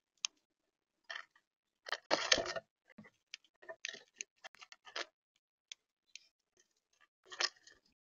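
Irregular sharp clicks and taps of a bird pecking seed on a feeder close to the microphone, with a louder rustling scuffle about two seconds in and another near the end.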